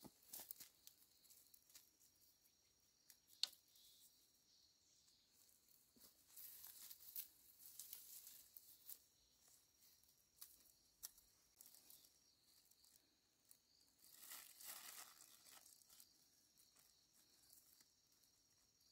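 Faint rustling and crinkling with a few sharp snaps, the loudest about three and a half seconds in, over a faint steady high chirr of insects.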